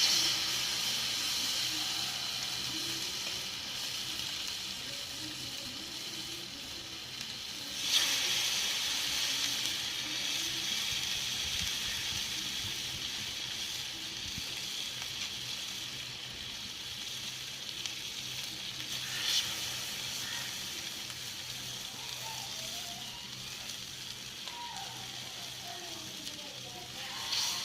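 Fish frying in hot oil, sizzling steadily, with the sizzle surging louder for a moment at the start, about eight seconds in, and again about nineteen seconds in.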